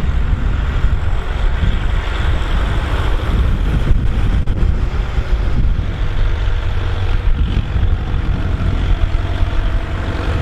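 Volvo BM 650 tractor's diesel engine running steadily under load while pulling a plough, with wind buffeting the microphone.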